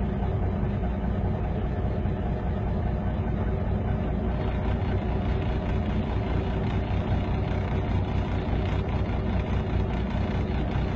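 A heavy engine running steadily at an even pitch.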